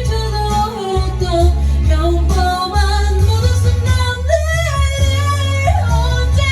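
A woman singing a ballad melody with long held and gliding notes over a karaoke backing track with a steady bass line.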